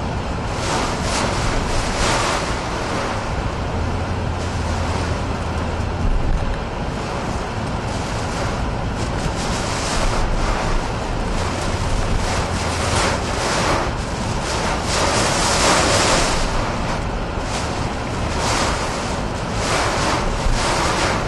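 Hurricane-force wind and driving rain battering a moving car, heard from inside: a steady rushing noise that swells in several strong gusts.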